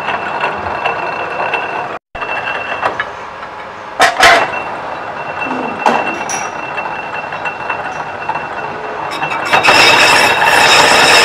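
Metal lathe running, its cutting tool turning a cast pump part spinning in the chuck: steady machining noise with a thin high whine. There are a few sharp knocks around four seconds in, and the cutting grows louder near the end.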